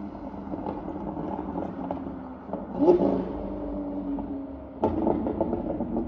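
Lamborghini Aventador's 6.5-litre V12 running through a straight-piped Capristo exhaust with no silencers. The engine note rises sharply about three seconds in. Near five seconds a sudden louder blast comes, followed by a quick string of crackles and pops.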